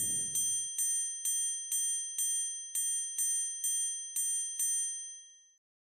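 Bright chime sound effect struck about twice a second, some ten times, over a high ringing that is held under the strikes and fades out near the end.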